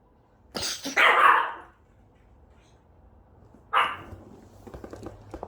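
Pomeranian barking twice, about three seconds apart, with faint ticking after the second bark.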